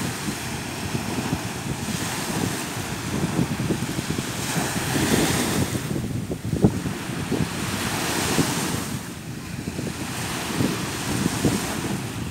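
Small waves breaking and washing up a sandy beach, the hiss of surf swelling twice, about halfway through and again a few seconds later. Wind buffets the microphone throughout.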